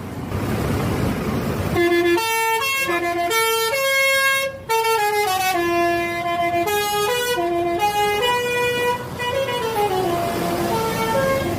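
Bus basuri horn playing a melody of held, stepped notes, starting about two seconds in after a spell of vehicle noise, with a downward slide of notes near the end.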